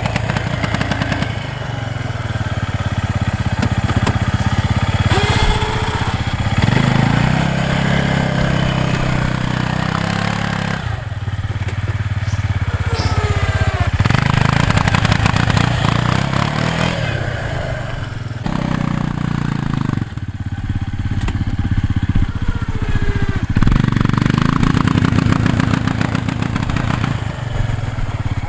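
Arctic Cat ATV engine working hard as it pushes a snow plow. The revs climb and fall back several times, with brief let-offs of the throttle.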